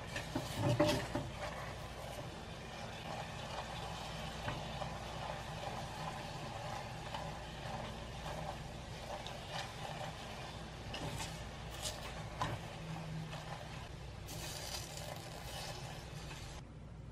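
Silicone spatula stirring and scraping bubbling caramel in a stainless steel saucepan, with the caramel sizzling as it boils and occasional light knocks of the spatula against the pan, loudest about a second in. A louder stretch of hissing near the end.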